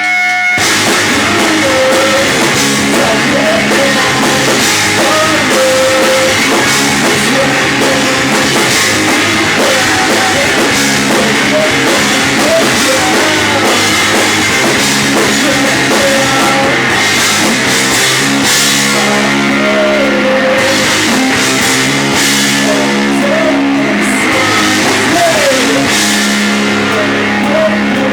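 Rock music with a drum kit and distorted electric guitar, the full band coming in just at the start.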